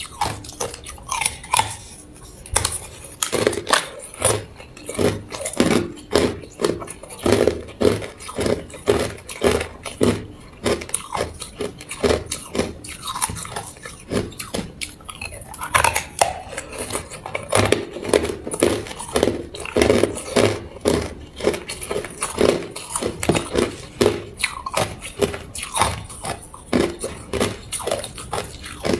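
Hard clear ice being bitten and chewed, a dense, irregular run of sharp crunches and cracks, several a second.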